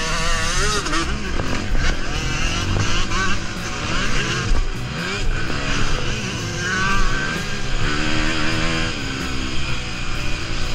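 Motocross bike engine heard up close from the bike, revving up and down as the rider accelerates along the track.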